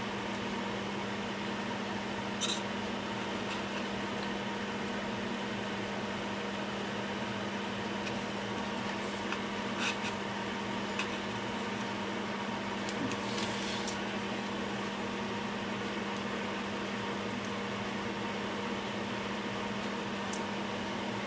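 Steady electrical hum with fan-like hiss from workbench equipment, with a few faint light clicks of a soldering iron and tweezers touching a circuit board.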